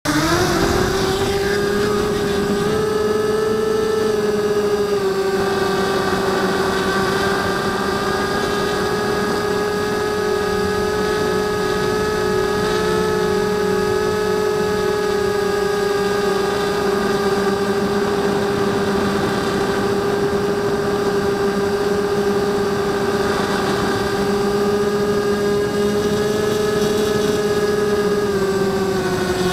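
Blade 200 QX quadcopter's electric motors and propellers whining steadily, heard up close through its onboard camera. The pitch rises at the very start as the motors spool up, holds nearly level with small wobbles, and dips slightly near the end.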